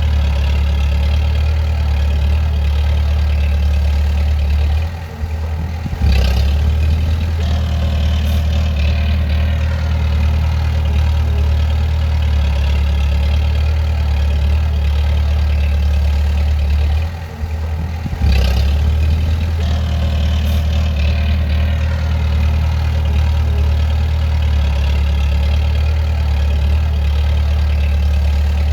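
A bulldozer's diesel engine runs steadily with a deep drone. It drops off briefly about five seconds in and again at about seventeen seconds, then comes back up sharply each time with a short clank.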